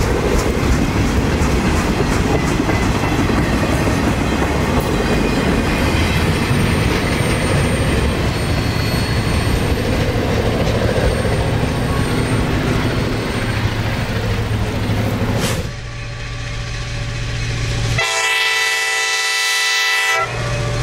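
Train of sugarcane cars rolling past with heavy, continuous rail noise, which breaks off abruptly about three-quarters of the way through. Near the end a locomotive horn sounds one blast of about two seconds, several tones together, over a low steady engine hum.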